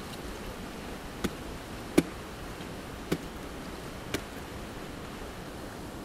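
An ice climber's gear striking frozen waterfall ice: four sharp strikes about a second apart, the second the loudest, over a steady hiss.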